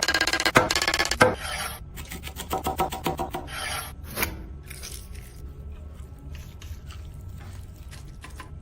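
Rapid rasping, rubbing strokes close to the microphone. They are loudest in the first second and a half, grow weaker over the next few seconds, and after about four seconds only faint scraping is left.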